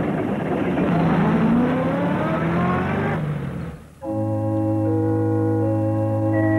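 A vehicle engine pulling away, its pitch climbing as it speeds up. About four seconds in it cuts out and an organ starts playing held chords.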